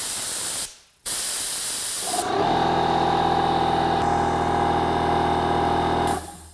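Compressed air hissing out of a blow-gun nozzle, with a brief break under a second in. From about two seconds in, a Metabo HPT EC36DAQ4 36V brushless, oil-free 2-gallon cordless air compressor runs with a steady whine to refill the tank, then shuts off about six seconds in as it reaches cut-out pressure, ending its recovery cycle.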